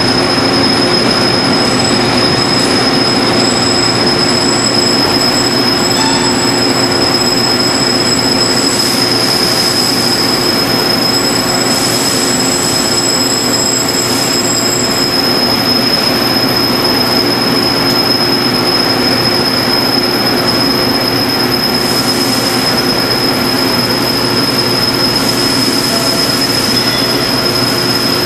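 Metal lathe running through a facing cut, a loud steady machine noise with a constant high whine and a low hum underneath. A thinner, higher squeal comes and goes during the first half.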